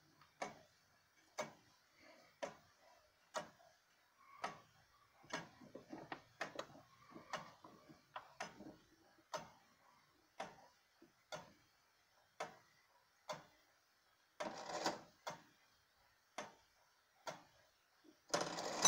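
Wooden-movement tall case clock ticking about once a second, with fainter clicks in between as the minute hand is pushed round by hand. There is a brief burst of noise about three-quarters through, and right at the end the bell begins to strike as the minute hand reaches the hour.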